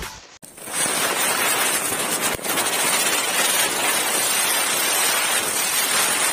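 Chakri (ground spinner firework) spinning and throwing sparks: a steady, dense fizzing hiss that starts about half a second in, with one brief crack a little over two seconds in.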